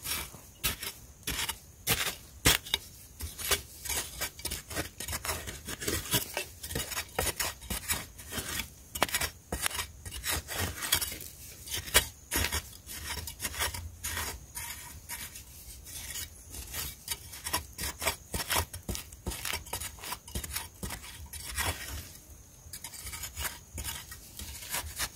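A long-handled metal digging blade stabbing and scraping into dry, crumbly soil in quick, irregular strokes.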